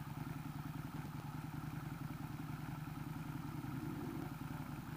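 A motorcycle engine idling steadily, with an even rapid low pulse.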